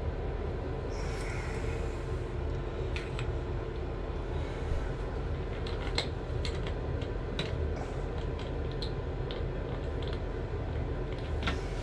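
Valve-seat grinding tool scraping and clicking against a tub/shower valve seat in short, irregular strokes, over a steady low rumble.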